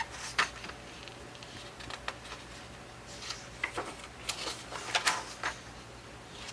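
Paper workbook pages being handled and turned: a series of short, soft rustles and taps.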